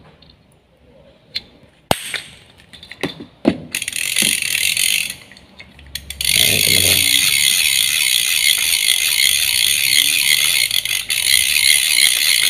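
Small Daido tegek reel being cranked by hand, its ratchet clicking rapidly: a few separate clicks, a short burst of winding about four seconds in, then steady fast winding from about six seconds in.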